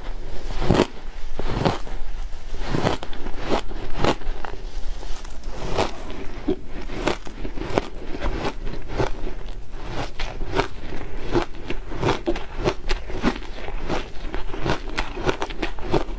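Repeated bites into a hand-packed block of shaved ice, the ice crunching and crackling between the teeth several times a second.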